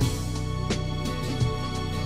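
Instrumental background music, with notes struck at a steady, unhurried pace.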